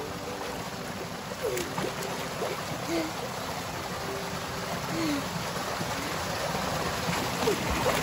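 Shallow water rushing steadily down a concrete channel, with a few faint short vocal sounds from a child.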